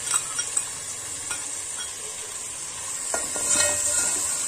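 Minced mutton sizzling as it fries in hot oil in a metal pot, with a few light clinks near the start. From about three seconds in a metal slotted spoon stirs it, scraping and knocking against the pot with short ringing clangs.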